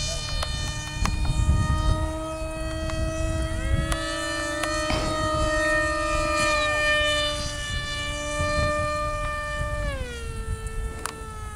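Small electric RC foam planes' motors and propellers whining steadily, the pitch stepping up about four seconds in and sliding down near the end as the throttle is changed. A low rumble of wind on the microphone runs underneath.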